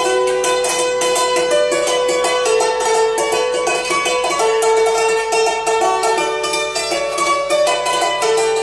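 Background music played on plucked strings, quick repeated notes over held tones.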